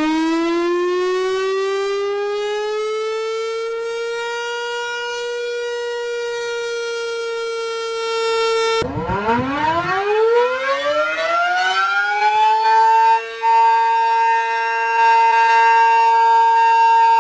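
Warning siren winding up, its pitch rising for about four seconds and then holding as a steady tone with many overtones. About nine seconds in it cuts off and a second wind-up starts from low, rising over three or four seconds to another steady held tone.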